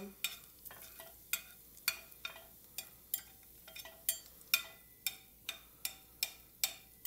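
Metal spatula tapping and scraping against a skillet while stirring garlic frying in olive oil: irregular sharp clicks, about two to three a second, over a faint sizzle.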